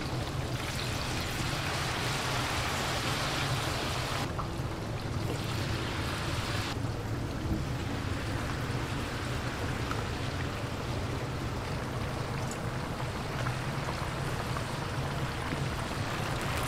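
Battered chicken pieces deep-frying in a large vat of hot oil: steady sizzling and bubbling, with a low steady hum underneath. The hiss thins for a couple of seconds about four seconds in, then returns.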